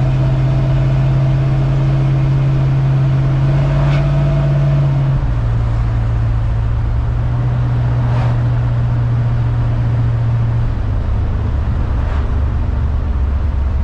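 A 1970 Dodge D100's 383 big-block V8, fitted with a Holley Street Dominator intake and a 750 CFM Holley four-barrel carburetor, running under way on a drive. Its steady low note steps down in pitch twice, about five seconds in and again near the end.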